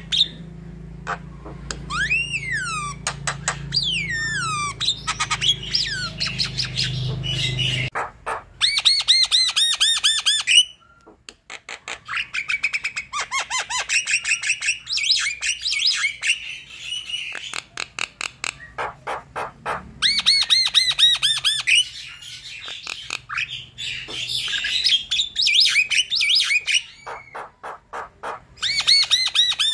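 Javan myna (jalak kebo) singing in bouts: rising whistled glides, then fast rattling runs of sharp notes and harsh squawks, with short pauses between bouts.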